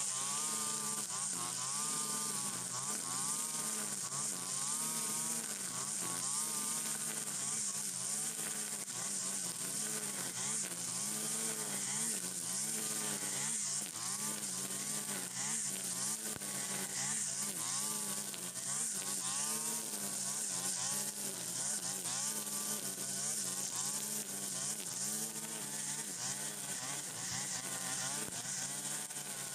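Stihl FS 120 brush cutter's small two-stroke engine running under load while cutting tall cogon grass. Its pitch rises and dips about once a second as the cutting head sweeps through the stems, over a steady high hiss.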